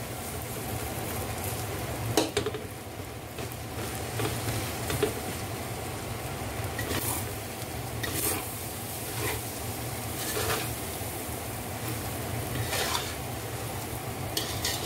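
Fried rice stir-frying in a metal wok: a steady sizzle, with a metal spatula scraping and knocking against the pan every second or two, over a steady low hum.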